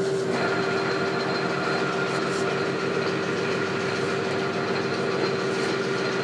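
Metal lathe running steadily, with a constant hum and a fainter higher whine, while brass stock is turned.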